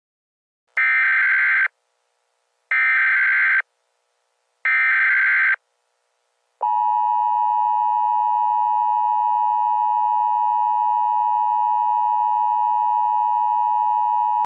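Emergency Alert System SAME header: three identical short bursts of shrill digital data screech, each just under a second long and a second apart. The steady two-tone EAS attention signal then begins about six and a half seconds in and holds unchanged.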